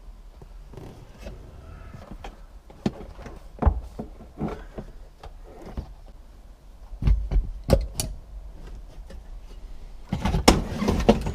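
Irregular knocks, clunks and scraping of metal and plastic as a car's aluminum instrument panel carrier, with the heater box attached, is worked loose from its mounts, with a burst of rattling and scraping near the end.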